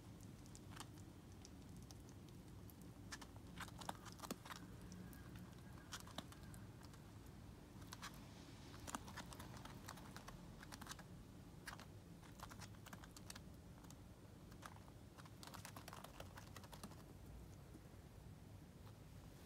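Near silence broken by faint, irregular light clicks and taps, in short flurries: a Richardson's ground squirrel's claws pattering on a floor mat as it moves about.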